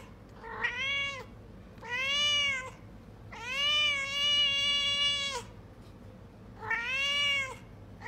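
Domestic cat meowing four times with pauses between: a short meow, a second of medium length, a long drawn-out meow of about two seconds, and a fourth near the end.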